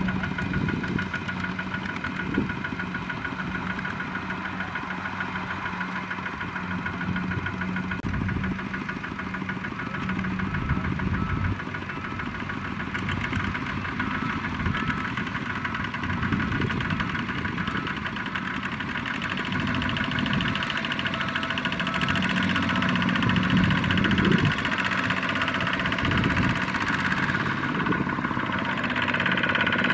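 Single-cylinder diesel engines of two-wheel walking tractors (Kubota ZT155) running steadily. The engine sound grows louder in the last third as a second tractor comes close.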